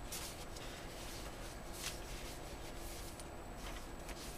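Paper leaflets and booklets rustling faintly as they are gathered and packed back up, with a soft brush of paper about two seconds in.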